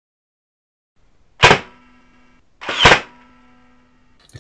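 Logo intro sound effect: two loud noisy hits about a second and a half apart, the second building up more slowly, each trailing off into about a second of steady ringing tone.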